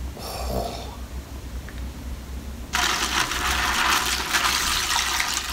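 Liquid pouring out of a cut-open breast implant, a steady splashing gush that starts suddenly about halfway through.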